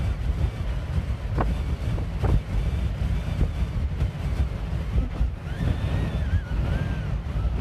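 Strong gusty wind buffeting the microphone in a heavy low rumble, over Lake Erie waves. Two sharp knocks come about one and two seconds in, and a wavering high whistle sounds near the end.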